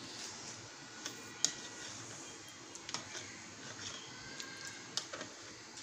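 Metal spoon stirring water in a plastic bowl, with a few light clicks as the spoon knocks against the bowl.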